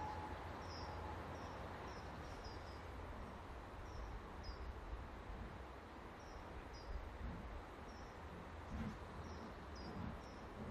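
Faint distant steam locomotive working towards the listener: a steady whistle note ends about a second in, then soft low exhaust beats grow more distinct in the second half. Over it, a small bird repeats short high chirps.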